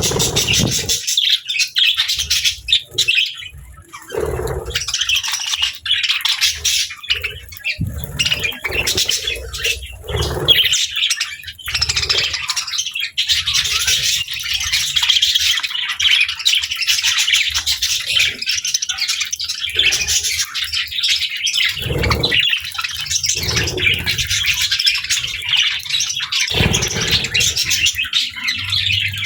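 Pet budgies and lovebirds chirping and chattering continuously in a dense, high-pitched stream, with occasional squawks. Several short low thumps or rustles come and go underneath.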